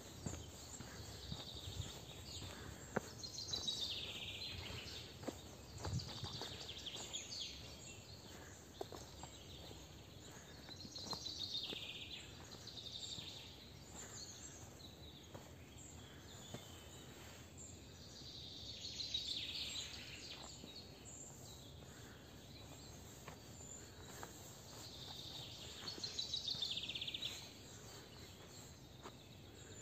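A songbird repeating a short trilled phrase that falls in pitch, about six times, over a low steady background rumble, with a few soft knocks.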